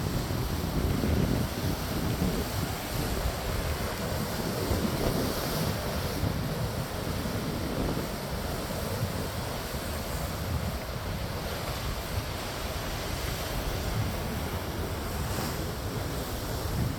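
Strong ocean waves surging and breaking, with gusty wind buffeting the microphone in a low, irregular rumble.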